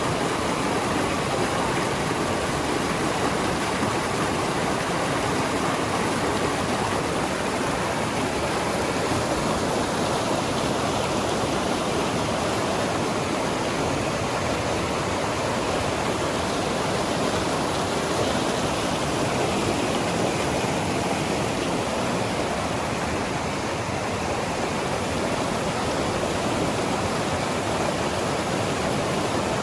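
Waterfall rushing steadily, a continuous roar of falling water.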